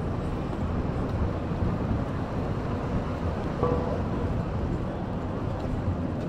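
Steady city street background noise, mostly a low rumble of distant traffic, with a brief faint tone a little over halfway through.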